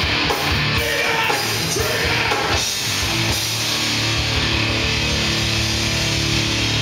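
Live rock band with distorted electric guitars and bass playing loud, heavy music. About three seconds in the choppy hits give way to a long held chord.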